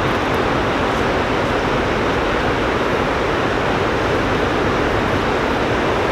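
Steady, unbroken rush of fast-flowing river water.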